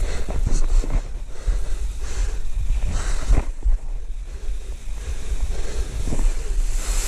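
Wind buffeting the microphone in gusts, with a low rumble, plus scattered short rustles and crackles.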